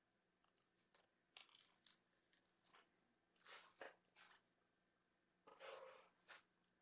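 Near silence, with a few faint scattered rustles and clicks.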